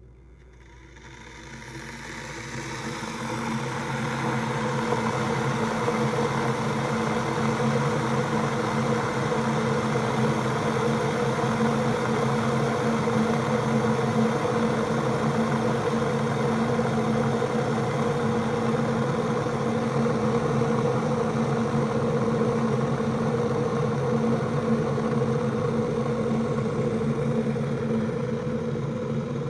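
KitchMix 1500 W stainless steel electric kettle coming to the boil with its lid off: the water's rumbling and bubbling swells over the first few seconds, then runs loud and steady at a full boil, with a steady low hum underneath.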